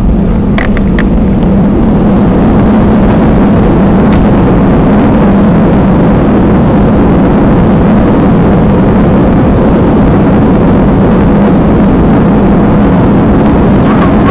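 Loud, steady roar inside the cabin of an Airbus A320-family airliner during its landing roll, with spoilers raised: engine noise and runway rumble. A couple of short rattling clicks come about a second in.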